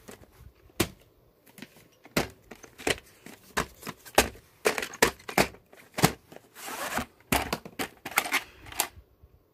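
VHS cassette and its cardboard sleeve being handled: irregular plastic clicks and taps as the tape is slid about and turned over, with a longer scraping rustle about two-thirds of the way through.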